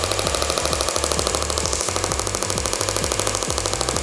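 Radial shockwave therapy handpiece pulsing against the shoulder: a rapid, even clicking that runs on without a break.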